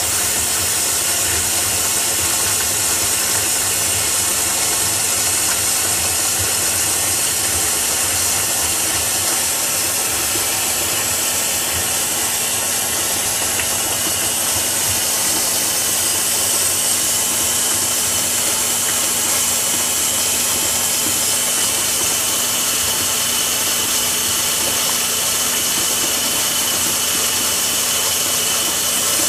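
Steady, even hiss with a faint low hum underneath, unchanging throughout, with no distinct knocks or clicks.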